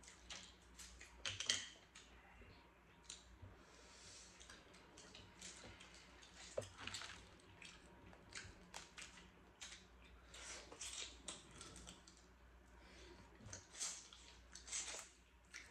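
Faint, irregular clicks and crackles of crab-leg and crawfish shells being cracked and picked apart by hand during eating.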